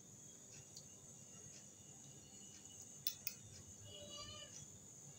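Faint clicks and scrapes of a steel spoon pressing used tea leaves against a metal mesh tea strainer, with two sharper clicks about three seconds in, over low room tone.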